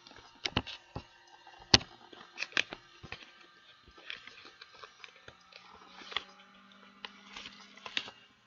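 Irregular sharp clicks and knocks, about a dozen, with the loudest a little under two seconds in. A faint steady low hum comes in about halfway.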